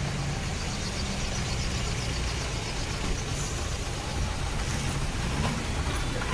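Bus engines idling, a steady low rumble.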